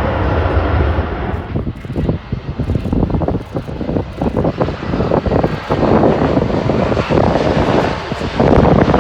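Landing jet airliner's engine noise as a steady rumble, giving way after about a second and a half to gusty wind buffeting the microphone.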